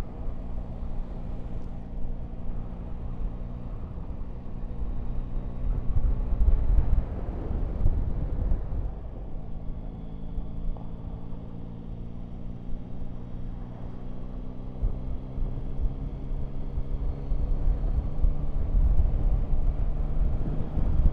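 Yamaha Tracer 9 GT's three-cylinder engine running at road speed, its pitch rising slowly through the second half. Wind rumbles on the microphone throughout, heaviest about six to eight seconds in and again near the end.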